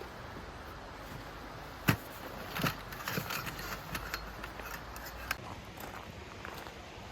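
A sharp knock about two seconds in, followed by a run of smaller clicks and rattles, like objects or gear being handled.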